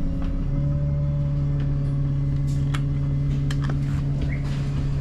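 Bus engine running with a steady low hum, heard from inside the passenger cabin, with a few sharp clicks and rattles about halfway through.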